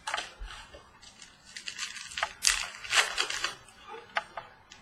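Trading cards being handled: a run of quick rustles, snaps and sliding noises as cards are flicked through and moved from one to the next.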